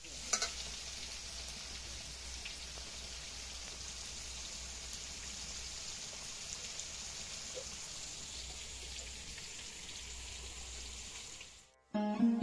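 Eggplant and other vegetable pieces frying in hot oil in an aluminium wok on a wood-fired mud stove: a steady sizzle with faint crackles. It cuts off suddenly near the end, and sitar music comes in.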